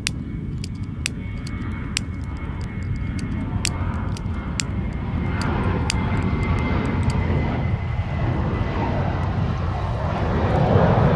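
Airplane flying overhead, its engine noise a low rumble that grows steadily louder and fuller toward the end. Scattered sharp clicks sound over it in the first few seconds.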